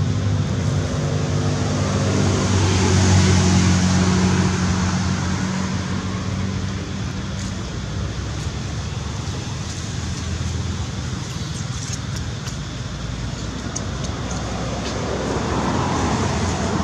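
A motor vehicle driving past: its engine hum swells to its loudest about three seconds in and fades by about eight seconds, leaving a steady background of road traffic.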